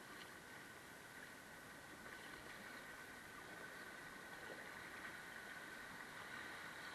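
Faint, steady rush of river water running through a shallow rocky riffle, growing gradually louder as the kayak nears the broken water.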